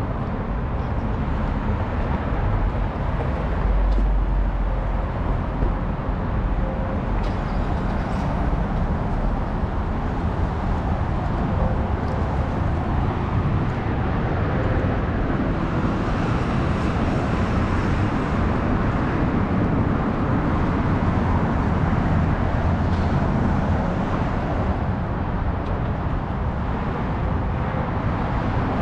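Steady road-traffic rumble from vehicles on the elevated freeway and bridge ramps, with a deeper low rumble swelling about four seconds in.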